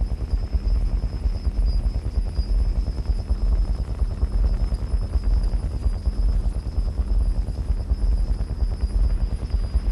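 Experimental electronic soundtrack: a dense, low rumbling drone with a rapid flutter running through it, and a thin, steady high tone held above.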